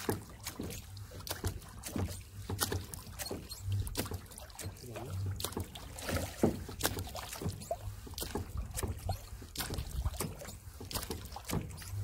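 Irregular knocks and clicks around a small boat as a fishing net is hauled in, over a low steady rumble.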